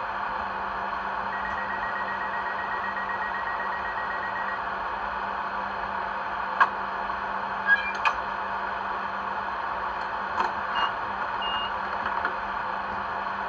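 DCC sound of a model Class 395 Javelin standing at the platform: a steady hum under a door-closing sequence, with a high beeping for about three seconds, then a few sharp clunks of the doors shutting about six to eight seconds in, and a couple of short high beeps and small clicks near the end.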